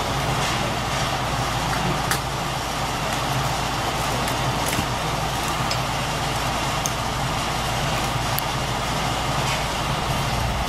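An engine running steadily at a constant level, with a few faint clicks over it.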